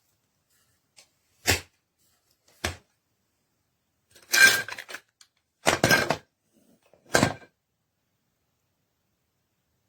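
Handling noises: two short knocks, then three longer clattering rattles with quiet between them.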